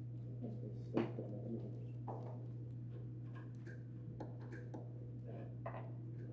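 Quiet room tone with a steady low electrical hum, broken by a few faint clicks and small knocks, the sharpest about a second in.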